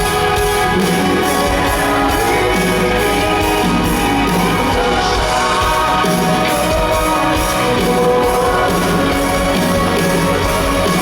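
Music with a steady beat, which cuts off abruptly at the very end.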